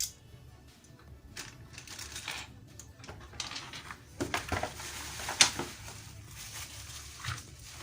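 Mechanical keyboard and its packaging being handled during unboxing: rustling with scattered sharp clicks and knocks, the loudest about four and five and a half seconds in.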